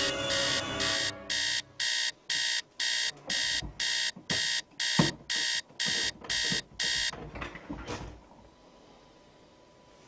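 Electronic alarm clock beeping, a rapid string of high beeps about two a second, which stops about seven seconds in. Soft low thumps of movement sound under the beeps, the loudest about halfway through.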